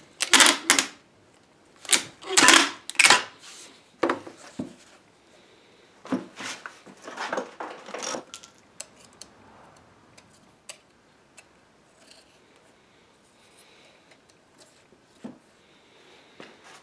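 Plastic packing tape pulled off a handheld tape dispenser in several loud noisy pulls through the first half, then only light clicks and taps of small hand tools.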